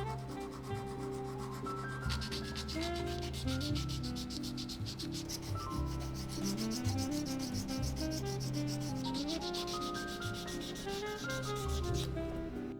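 Knife handle scales being hand sanded with sandpaper: rapid, even back-and-forth rubbing strokes that start about two seconds in and stop shortly before the end. Background music plays throughout.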